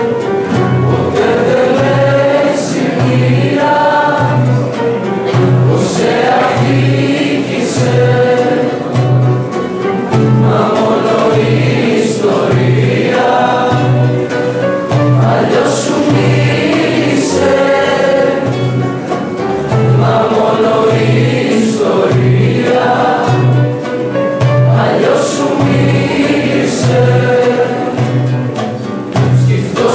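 A group of voices singing a song together to acoustic guitar accompaniment, over a steady low beat.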